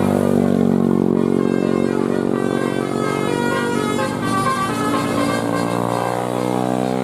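Tour bus's Basuri telolet horn, a set of musical air horns, playing a tune in long held notes that change pitch every second or two.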